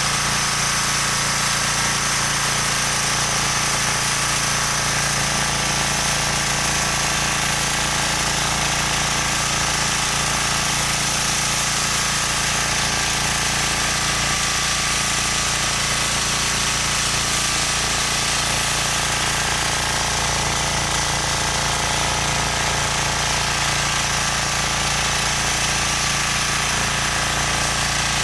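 Rotakt walk-behind tractor (motocultor) with a rotary tiller, its engine running steadily under load as the tines churn through the soil.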